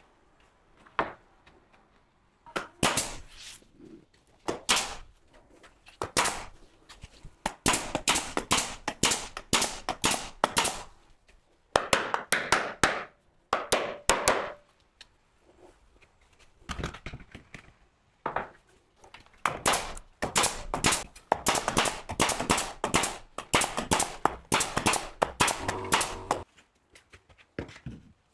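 Bursts of rapid sharp cracks and knocks, several a second, with short pauses between bursts.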